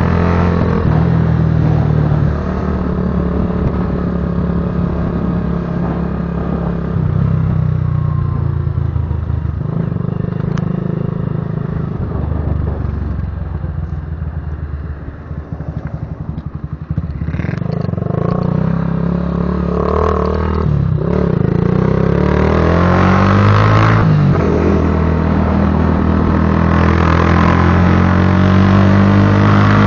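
Patagonia Eagle cruiser motorcycle's exhaust rumbling as it is ridden. The engine note falls and quietens about halfway through as the bike slows, then climbs again in steps through the gears.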